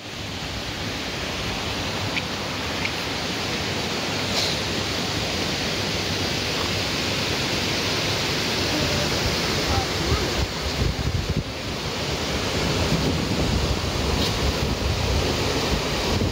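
Steady rushing hiss of a stream flowing over a low weir, with wind buffeting the microphone; the low fluttering rumble gets stronger in the second half.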